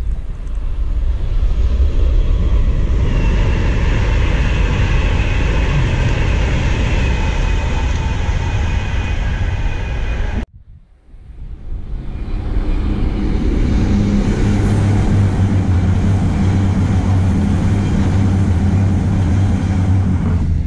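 Electric passenger trains on an overhead-wired main line. The first passes with a loud rushing track noise and a high whine, which cuts off abruptly about halfway through. Then a second train comes in, swelling over a couple of seconds into a steady low hum.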